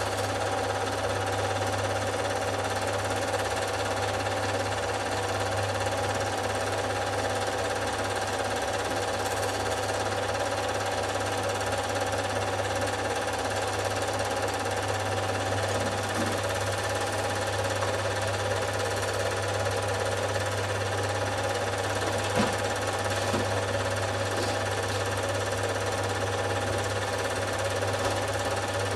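Film projector running: a steady mechanical clatter from the film-advance mechanism over a constant low hum.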